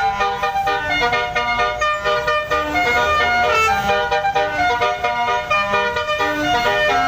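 Basuri telolet bus horn playing a fast melody of short, changing notes without pause.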